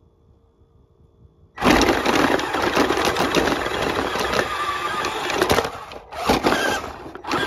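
Tamiya Clodbuster radio-controlled camera truck setting off over snow: a loud, dense whirr of its electric motors and gearboxes with its tyres in the snow, starting suddenly about a second and a half in and briefly easing off twice near the end.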